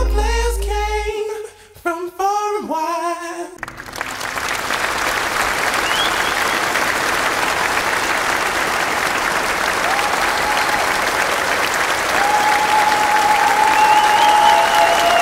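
Sung vocals at the end of a song stop about three and a half seconds in. Steady applause from a crowd then takes over, with a few long high calls over it near the end.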